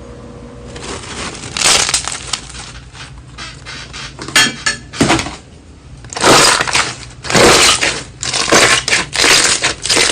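Slime being squeezed and pressed, making loud crunching, crackling sounds in a run of repeated bursts that grow louder and closer together in the second half.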